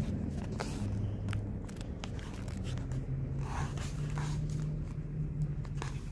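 Diesel locomotive engines drone low in the distance, their pitch shifting as they work to get a heavy stalled freight train moving. Scattered sharp clicks and scrapes sound close by.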